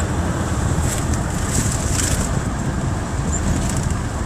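Steady engine and road rumble heard from inside the cabin of a moving four-wheel drive, with a few light rattles between about one and two seconds in.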